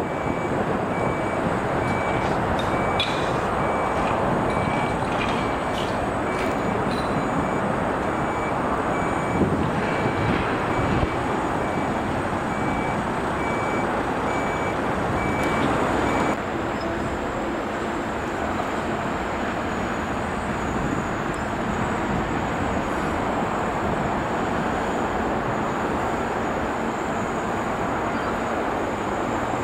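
Large mobile crane's diesel engine running steadily during a truck recovery lift, with a warning beeper sounding in an even repeating pattern. About halfway through the beeping stops abruptly and the engine sound drops a little.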